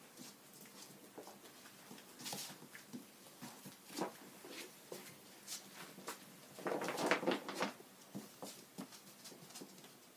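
Nearly five-week-old Golden Retriever puppies playing on a tile floor: scattered light clicks, scrapes and bumps, with a busier, louder stretch of scuffling about seven seconds in.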